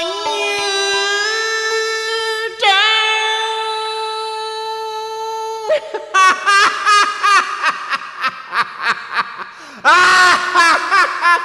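Man singing Vietnamese cải lương-style vocals with keyboard accompaniment. He holds two long high notes, then sings a quick run of wavering, ornamented notes and breaks into a loud phrase near the end.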